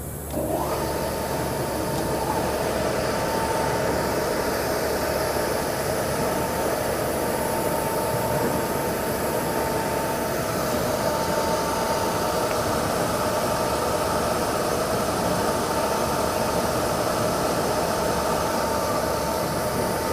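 Reitz stainless steel twin paddle mixer starting up about half a second in, its dual 7-1/2 hp motors and double chain drives rising quickly to speed. It then runs steadily, a constant whine over a mechanical hum.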